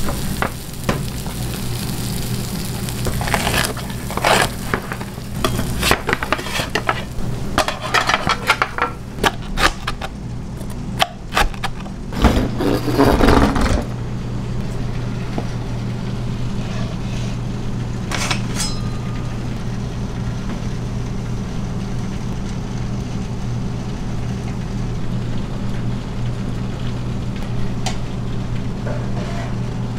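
Steel pizza pans clattering and scraping on metal in a kitchen, loudest about twelve seconds in, over a steady low machine hum. From about halfway the hum carries on alone with a few faint clicks.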